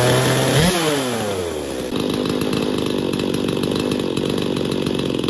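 Stihl chainsaw's two-stroke engine running: its speed falls away, picks up briefly about a second in, then settles into a steady idle near 3000 RPM as the idle screw is set toward the 2800 RPM spec.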